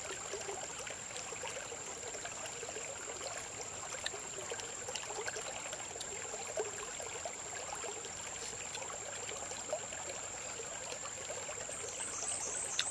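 Shallow creek trickling over stones, a steady babble of running water, with a thin high-pitched whine held constant above it.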